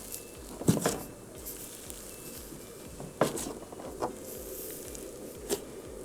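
Glittery slime being squished and pressed by hand for ASMR, with a handful of short, sharp wet pops and clicks, the loudest about a second in.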